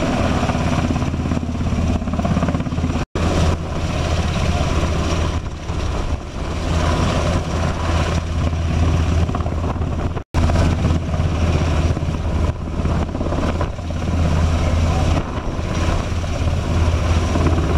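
NH90 military transport helicopter hovering low overhead: a loud, steady rotor and turbine drone with a strong low hum. The sound is broken twice by a split-second gap.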